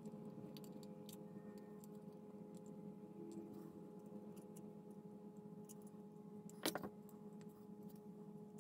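Faint small clicks and taps of tweezers and fingers handling a model starship hull while fiber-optic lines are threaded through it, with a sharper double click about two-thirds through. A steady low hum runs underneath.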